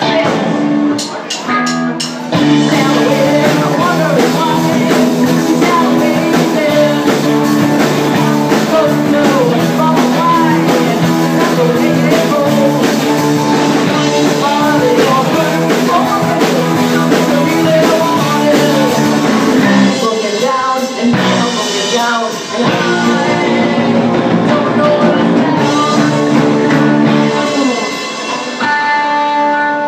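Live rock band playing a song, with guitars, drums and a singing voice.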